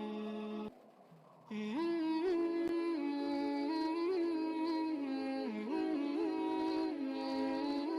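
Background music: an ornamented, gliding melody over a steady drone, sitar-like in style. It breaks off briefly about a second in and resumes.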